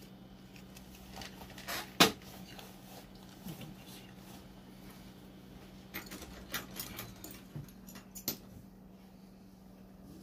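A sharp click about two seconds in, then a few lighter clicks and taps a few seconds later, over a steady low electrical hum.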